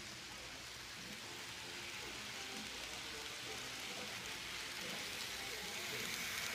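N-scale model trains running on sectional track, a steady hiss of small wheels and motors that grows louder toward the end as a train passes close by.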